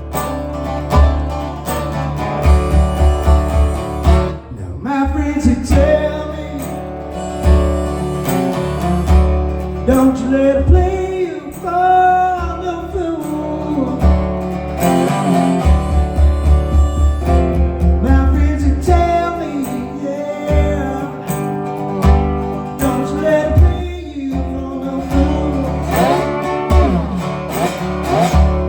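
Instrumental break in a country-blues tune: a harmonica solo with bending, sliding notes over a plucked resonator guitar, with a steady low beat underneath.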